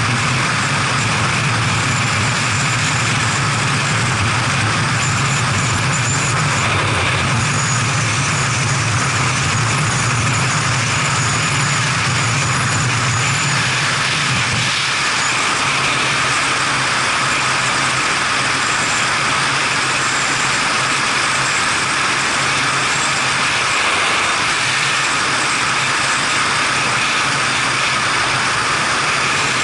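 Motorcycle ride heard from a helmet camera: steady wind rush over the low drone of a BMW F700GS's parallel-twin engine. The engine note dips briefly about halfway through, then carries on.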